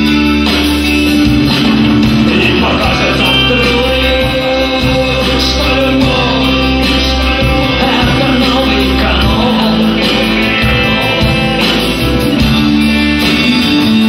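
Live rock band playing with guitars, bass guitar, drums and accordion.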